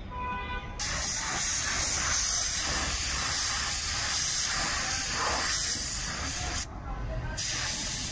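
Compressed-air paint spray gun spraying black paint, a steady hiss that starts about a second in, breaks off briefly near the end and then resumes.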